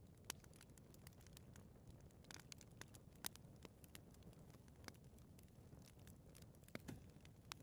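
Fireplace fire burning: a low, steady rumble with scattered crackles and sharp pops. The louder pops come about a third of a second in, at about three seconds and near the end.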